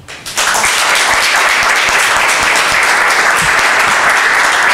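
Audience applauding: many hands clapping, starting suddenly about a third of a second in and holding steady and loud.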